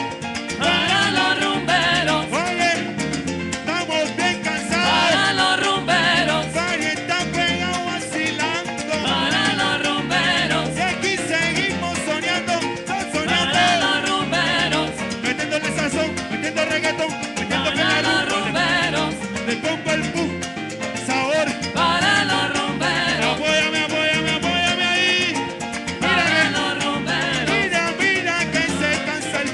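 Live band playing Latin tropical dance music in a salsa style, with singers over a steady, repeating bass and percussion groove, heard loud through the stage sound system.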